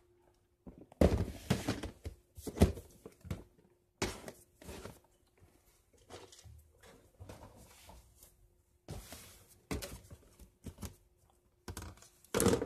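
Handling noises from a box of medicine packages being taken out and rummaged through: irregular rustles, knocks and thunks, the loudest just before the end.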